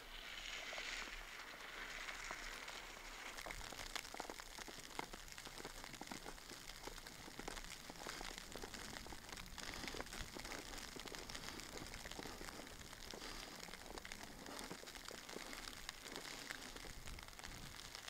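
Footsteps crunching in snow under a light, steady patter of falling snow: a dense run of small irregular crackles over a soft hiss.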